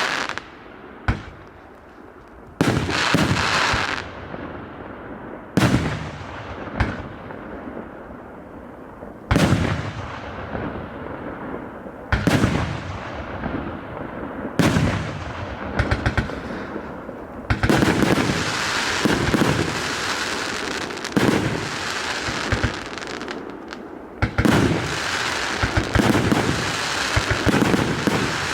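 A 188-shot fireworks cake firing: loud shots a few seconds apart, each burst trailing off in a fading hiss. In the second half the shots come much faster and run together into a continuous barrage of bangs.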